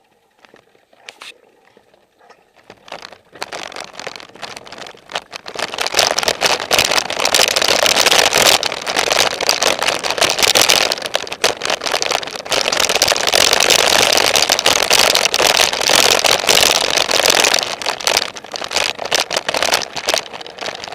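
Mountain bike riding fast over a rough, rocky trail: tyres crunching and the bike rattling in a dense clatter of clicks and rushing noise. It builds up a few seconds in, runs loud for most of the time and eases near the end.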